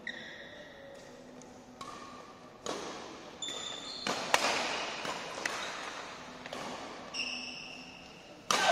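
Badminton rackets striking the shuttlecock in a doubles rally, a sharp echoing hit every second or so, with court shoes squeaking between the hits. The loudest hit, about four seconds in, is a jumping overhead smash.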